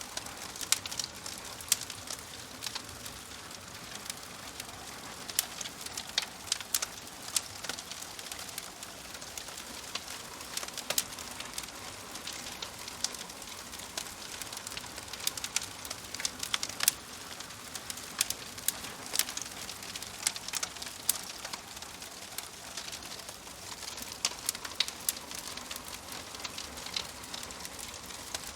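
Wood fire crackling in a fireplace: a steady hiss with frequent irregular sharp pops and snaps.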